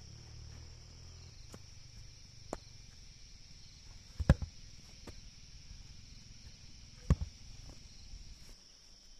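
Insects singing steadily, with a few sharp knocks over it: a double knock about four seconds in is the loudest, another comes about seven seconds in, and fainter taps fall in between.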